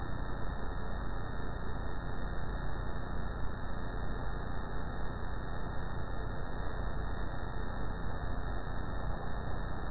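Steady electrical hum with static hiss, unchanging throughout, with no distinct events: noise on the nest camera's audio feed.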